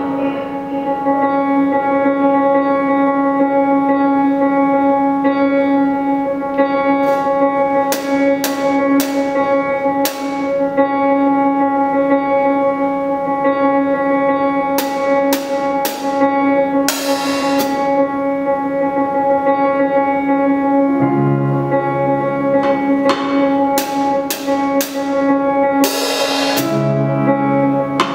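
Live improvised band music: a held keyboard drone with many overtones runs steadily underneath while drum-kit cymbals and drums strike in scattered clusters. Lower bass notes come in about three quarters of the way through.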